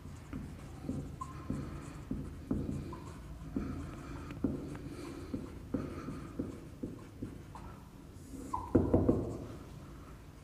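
Whiteboard marker writing on a board: a run of short strokes and taps, about two a second, with brief squeaks, and a louder, longer stroke near the end.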